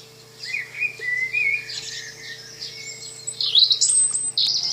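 Recorded European robin song: quick, high, warbling phrases with short gaps, over quieter background birdsong, played back through exciter-driven back-scene panels. A faint steady hum runs underneath.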